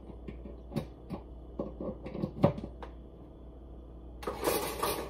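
Light clicks and knocks of kitchen things being handled on a countertop, then a louder rustling noise about four seconds in.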